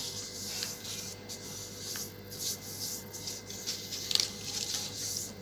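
A sheet of gift paper rustling and scraping as hands fold it over and press a crease, in short, irregular scratchy rustles. A faint steady hum runs underneath.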